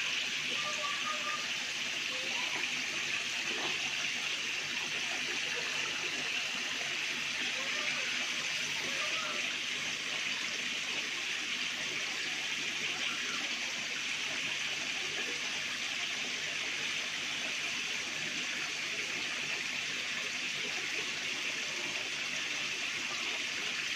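Steady rush of water running into the tanks of a recirculating fish-rearing system.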